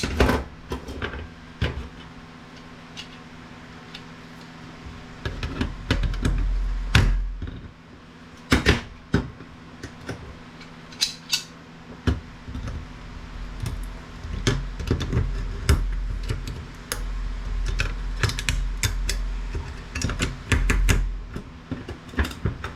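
Metal RF shield covers being pried off a circuit board: irregular sharp metallic clicks, snaps and clatter, with occasional low knocks of the board being handled.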